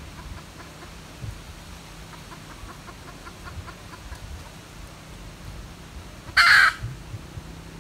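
A junglefowl gives a single short, loud, harsh squawk near the end. Faint quick ticking sounds in the background, about six a second.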